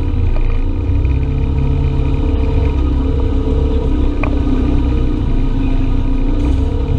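Side-by-side UTV engine running under way with a steady low rumble, its pitch shifting a little as the throttle changes.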